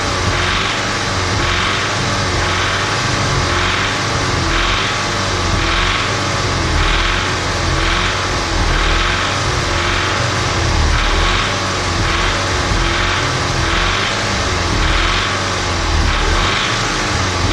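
Audi S3 2.0 TFSI (CDLA) turbocharged four-cylinder engine revved up and down repeatedly, its pitch rising and falling about once a second. It carries a knocking, diesel-like clatter on the revs, which the owner takes for cam noise.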